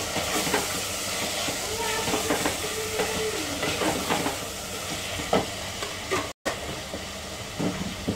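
Chopped tomatoes, whole spices and ginger-garlic paste sizzling in hot oil in an aluminium pressure cooker, with a wooden spoon scraping through them as they are stirred. The sound drops out for a split second about six seconds in.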